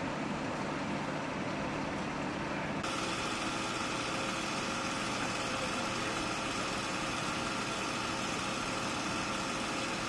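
Steady drone of engines running at idle on an aircraft apron. The sound changes abruptly about three seconds in, becoming brighter, with a faint steady whine over the drone.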